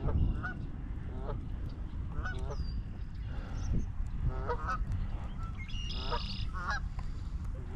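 Geese honking: a run of short, nasal calls, some in quick pairs, repeating every second or so over a steady low rumble.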